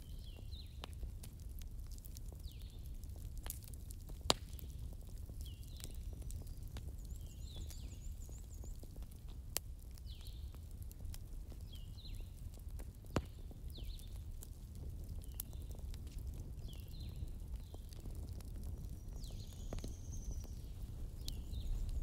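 Wood fire in a fireplace crackling, with scattered small ticks and three sharper pops over a steady low rumble. Faint short high chirps recur about once a second.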